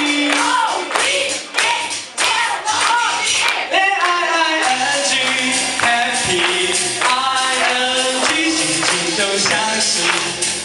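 A man singing a pop song into a microphone over a backing track with a steady beat, amplified through a PA.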